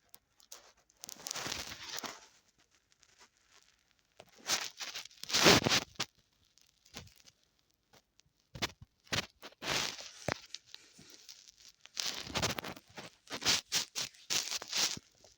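Irregular rustling and scraping noises in short bursts, with scattered sharp clicks.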